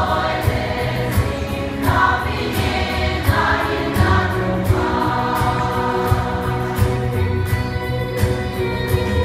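A large choir, mostly women, singing together over a steady beat of sharp strikes, about three a second.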